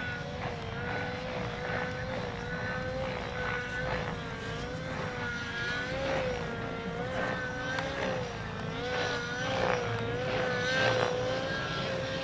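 Steady whine of a model helicopter turbine engine, its pitch wavering gently up and down, over a low rumble.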